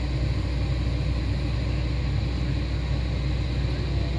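Hitachi Zaxis 210 excavator's diesel engine running steadily with a low, even rumble.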